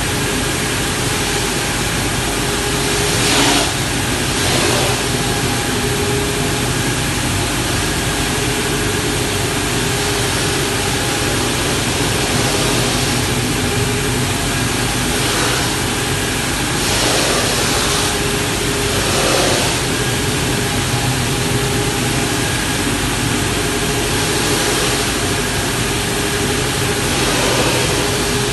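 A Timesaver wide-belt grinding and deburring machine running steadily: a continuous hum with a loud hiss over it. The hiss briefly swells a few times, about three seconds in and again around seventeen and nineteen seconds in.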